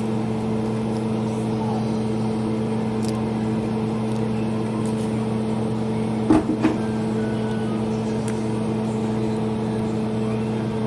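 Steady electric hum of a household appliance motor running, with a couple of light knocks about six seconds in.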